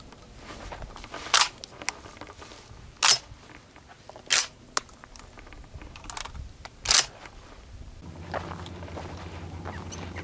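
A series of sharp, short cracks or clicks, four of them loud, spaced one to three seconds apart, with a few fainter ticks between. A low steady hum comes in near the end.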